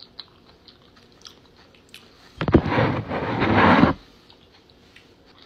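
A person chewing a mouthful of food, with small soft mouth clicks. About two and a half seconds in, a louder rough noise lasts for about a second and a half.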